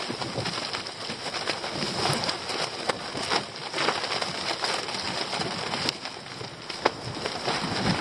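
Gusty storm wind buffeting a nylon dome tent: the fabric flapping and crackling in many short snaps over a steady rush of wind.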